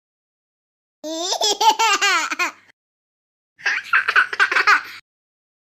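Two bursts of high-pitched laughter: the first starts about a second in, and the second follows after a short pause.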